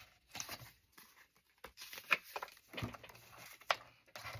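Paper index cards being handled and slid into a divided card container: irregular rustles, scrapes and light taps of card stock.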